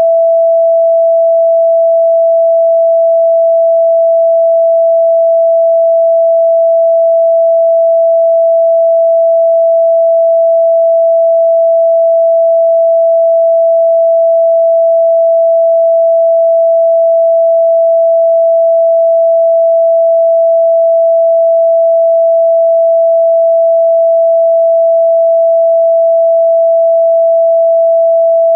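A single loud, steady pure sine tone a little above 600 Hz, held without any change in pitch or level. It is an electronically generated meditation tone for chakra activation.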